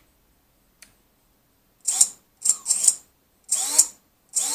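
The Eachine Wizard X220 quadcopter's brushless motors, propellers off, spun up from the transmitter in short throttle blips. A string of brief whines starts about two seconds in, each rising in pitch as the motors spool up. It is a first motor test, showing that the freshly bound receiver and the motors work.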